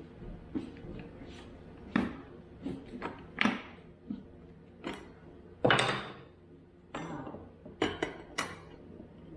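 Scattered knocks, clicks and clatters of hard pieces being handled while a sculpture mold is worked apart, with a longer rattling clatter about six seconds in.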